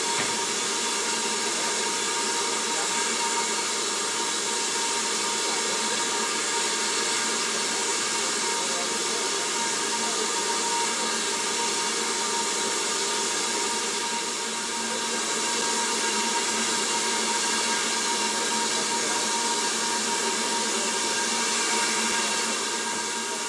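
Stationary BR Standard 4MT 4-6-0 steam locomotive with steam escaping in a steady hiss that carries several whistling tones, easing slightly about two-thirds of the way through.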